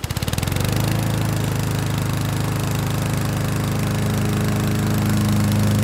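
DeWalt miter saw running, its blade cutting slowly through a copper bar and the wooden holding block laid on top of it. The motor comes up to speed in the first second, then holds a steady hum with a hiss of cutting over it.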